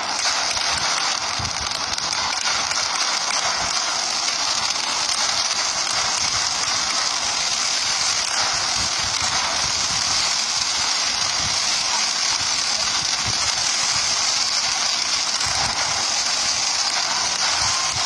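Ground-level fireworks, fountains and cakes, giving off a steady, dense crackling hiss, with scattered dull thuds of shots being launched underneath.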